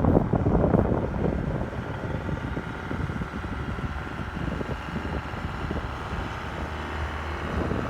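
Cessna Citation business jet's turbofan engines running with a steady rumble and a whine that grows stronger near the end as the jet begins its takeoff.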